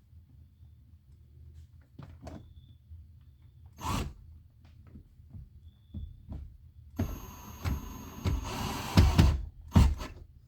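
Clicks and knocks of parts and tools being handled, then a Hart cordless drill runs for about two seconds with a steady high motor whine, followed by a couple more knocks.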